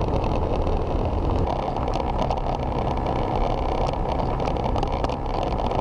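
Small motorbike's engine running at a steady speed while riding, with rumble and noise from a rough, broken road surface.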